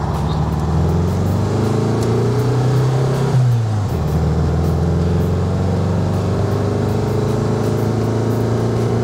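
Air-cooled VW Beetle flat-four engine pulling the car along, fitted with a newly installed vacuum-advance distributor and electronic ignition. Its pitch rises as it accelerates, falls sharply about three and a half seconds in at a gear change, then climbs slowly again.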